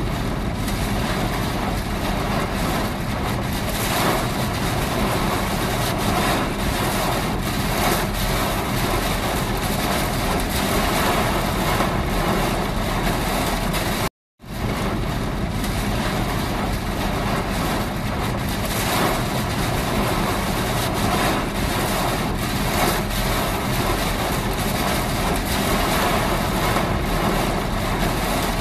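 Steady noise of heavy rain and wind over the rumble of car engines on a flooded highway. The sound cuts out for a split second about halfway through, then continues unchanged.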